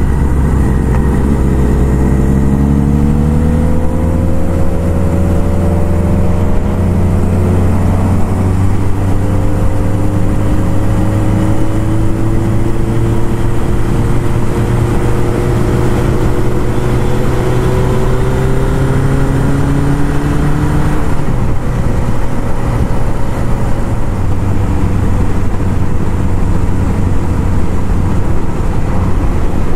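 A 1978 Kawasaki KZ1000's inline-four engine is heard from the saddle, accelerating with its pitch climbing. It shifts up around eight seconds in and again about two-thirds of the way through, then holds a steady pitch, under a constant hiss of riding noise.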